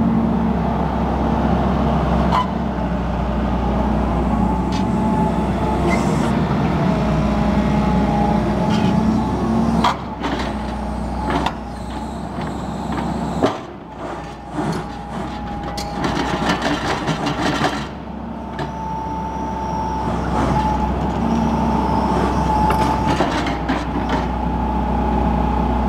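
Hitachi EX135UR-5 crawler excavator's diesel engine running steadily. Its note drops about ten seconds in, and a series of metallic knocks and clanks follows for several seconds before the engine settles back. A thin whine comes and goes over the engine.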